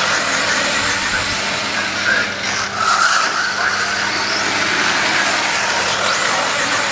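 1/8-scale radio-controlled late model race cars lapping an oval at speed, a continuous motor noise whose pitch shifts as the cars pass.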